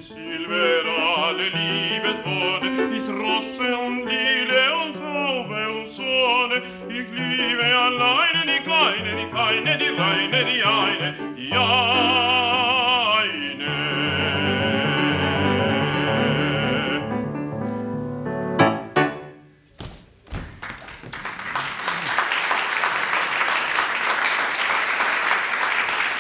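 A man sings an operatic-style art song with grand piano accompaniment, his voice with a wide vibrato, ending on a long held note. The voice stops about 17 seconds in, the piano closes the song a second later, and after a short pause an audience applauds.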